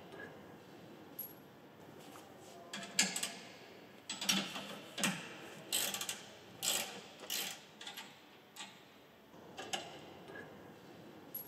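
Scattered metallic clicks and knocks as a steel transport protector is unfastened and lifted off a corn head's row units by hand. They come several a second through the middle of the stretch and are sparse at either end.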